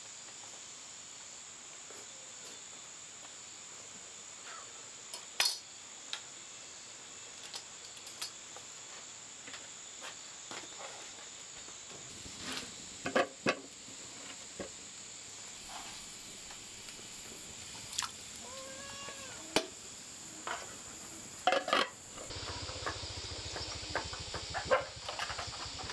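Insects chirring in a steady high drone, with scattered clinks and taps of bowls and chopsticks at a meal. A denser run of taps and rougher noise comes near the end.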